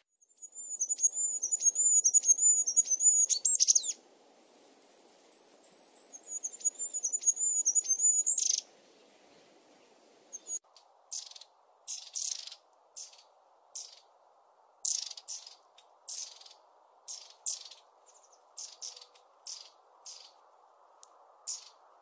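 Goldcrest song: two long, very high, thin trilling phrases, each ending in a quick flourish. About ten seconds in it gives way to long-tailed tit calls, a string of short high notes roughly two a second.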